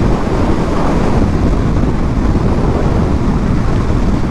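Steady wind rush on the microphone of a moving KTM 1290 motorcycle, with the engine running underneath.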